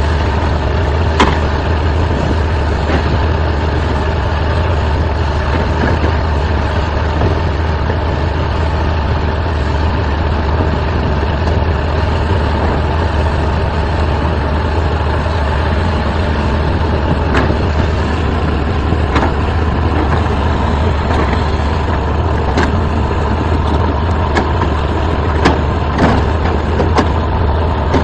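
Tracked excavator's diesel engine running steadily with a strong low hum, broken by a few short clicks.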